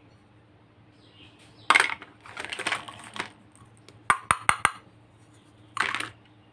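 Toy pieces being handled: a sharp scraping burst and some rustling, then four quick sharp clicks, then another short burst near the end.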